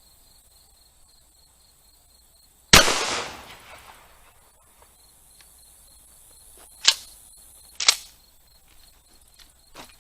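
A 12-gauge Remington 870 pump shotgun fires a single shot of birdshot, loud and sharp with a long ringing tail. It is followed a few seconds later by two sharp clacks about a second apart. Crickets chirr steadily in the background.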